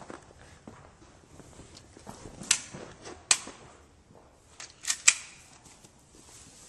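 Airsoft pistols firing: four sharp cracks, the first two about a second apart and the last two in quick succession about five seconds in, with fainter ticks between them.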